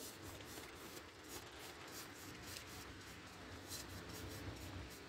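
Paintbrush scrubbing paint onto a canvas in a rapid series of short, rough swishes, over a low rumble of wind.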